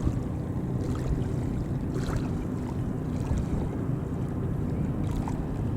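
Wind buffeting the microphone: a steady low rumble that flutters unevenly, with a few faint ticks.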